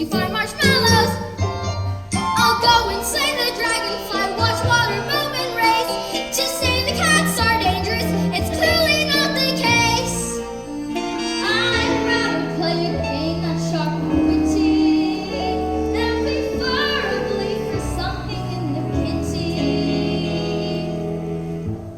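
Musical-theatre number playing: a backing track with a steady bass line and melody, with singing over it at times.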